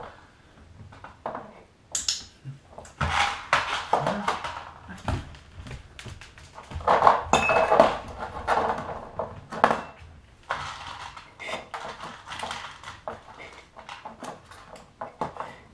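Glass shaker jars with perforated metal caps clinking and clattering against each other and their board as they are handled and nosed. The sound is a run of small irregular clicks and knocks, with busier clattering twice.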